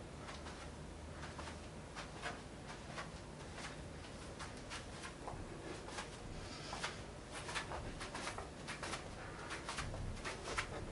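Soft, irregular footsteps and shuffles of sock feet on a rug and floor, a man walking with a resistance band around his legs; the steps get louder from about halfway through as he comes closer.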